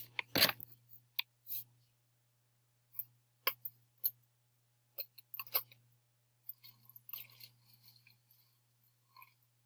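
Plastic vinegar bottle and cap being handled: scattered clicks and taps, then a faint soft hiss with small ticks from about six and a half seconds in as the vinegar goes into the baking soda bottle.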